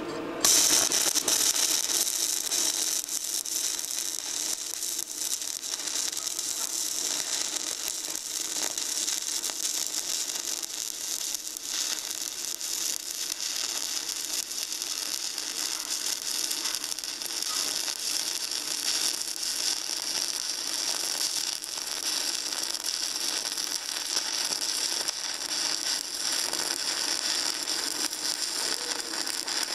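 Stick welding arc from a 1/8-inch 6010 electrode at 100 amps, crackling steadily as a weld is run along the gussets. The arc strikes about half a second in.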